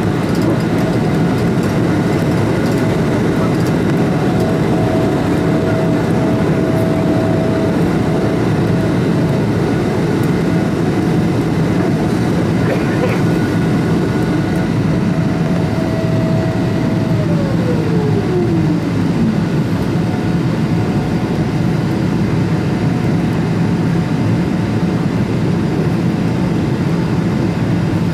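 Cabin noise of a Boeing 777-300ER climbing out just after takeoff, heard from a window seat over the wing: its GE90-115B engines running hard under the steady rush of air. A whine in the noise slides down in pitch about seventeen seconds in.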